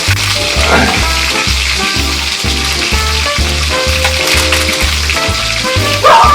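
Fish frying in hot oil, a steady sizzle, under background music with a steady beat.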